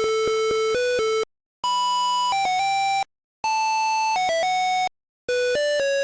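PC speaker beeping out a one-note-at-a-time melody of buzzy square-wave tones, driven by a hobby operating system. The notes step up and down in pitch with tiny breaks between them, and the tune stops three times for about a third of a second.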